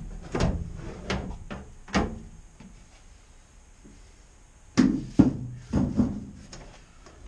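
Metal parts of a new JobSmart benchtop sandblast cabinet, including its wire-mesh grate, being moved and set down inside the steel cabinet. There are a few knocks in the first two seconds, a short lull, then a cluster of louder clunks about five to six seconds in.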